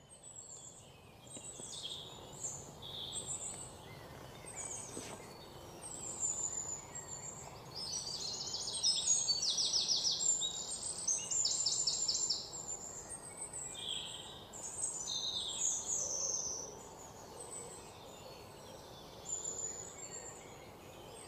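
Birds chirping and calling, many short high notes, with several rapid trills in the middle, over a faint steady hiss.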